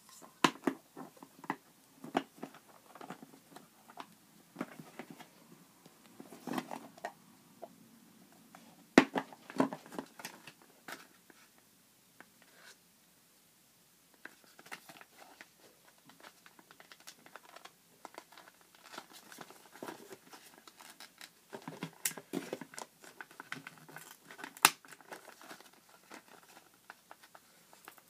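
Hands handling a clear plastic eraser case and a card-backed plastic blister pack: irregular clicks and taps of plastic, with crinkling and rustling of the packaging and a short lull a little before the middle.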